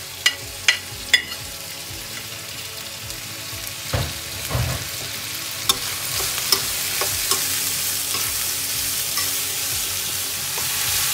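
Chopped vegetables sizzling in a hot non-stick wok while being stirred with a spoon, with a few sharp taps against the pan in the first second. The sizzle grows louder in the second half.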